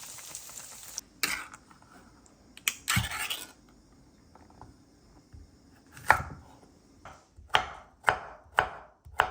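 Food sizzling in a pan stops suddenly about a second in. Then a kitchen knife chops on a cutting board: a few separate strokes, then a quicker run of about two a second near the end.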